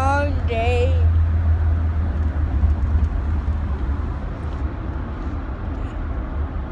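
Steady low road-and-engine rumble heard inside a moving car's cabin, with a short wavering vocal sound in the first second.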